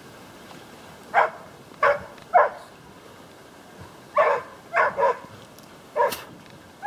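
Pig-hunting dog barking at a caught boar: about seven short, sharp barks in three quick bursts.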